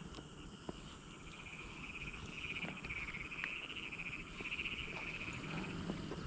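A steady, high-pitched pulsing chorus of calling animals that swells about two seconds in, over a low rumble of wind on the microphone.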